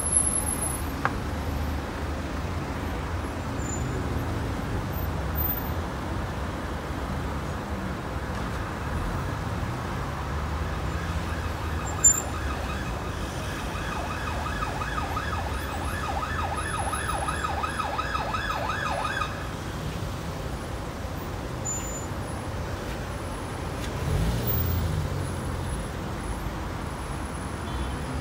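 Emergency-vehicle siren in a fast yelp, rising and falling about two to three times a second, heard for roughly nine seconds in the middle, over the steady low rumble of queued road traffic. An engine swells louder near the end.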